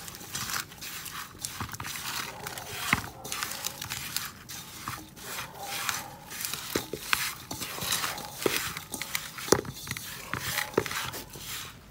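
Plastic spice packet being handled by hand: irregular crinkling and rustling with scattered sharp crackles.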